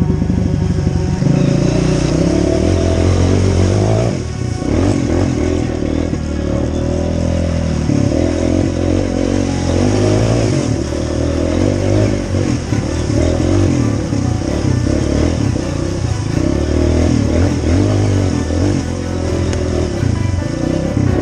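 Honda CRF230F dirt bike's single-cylinder four-stroke engine running under changing throttle as it is ridden, easing off briefly about four seconds in.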